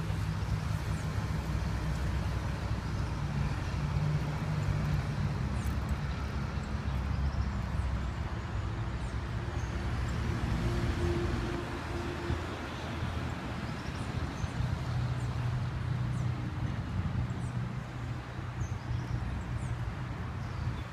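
Steady low rumble of road traffic, its engine hum shifting slowly, with a few short bird chirps.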